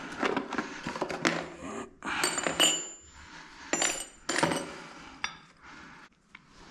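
Small metal tap fittings clinking and clattering as they are put into a cardboard box, several knocks in a row with a few short bright metallic rings; the handling dies down near the end.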